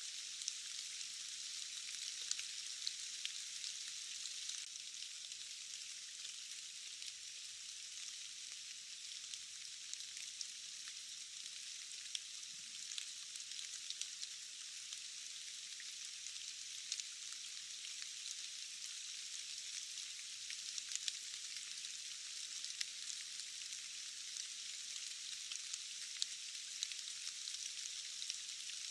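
Steady rain falling, an even thin hiss peppered with many small sharp drop ticks.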